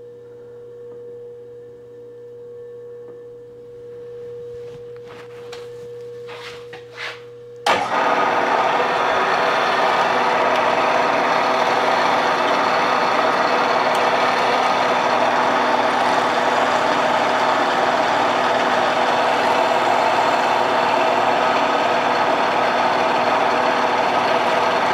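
A few light clicks as a drill is chucked, then about eight seconds in a milling machine's spindle starts suddenly and runs loud and steady, drilling a 1/8-inch pin hole through a motorcycle shift shaft.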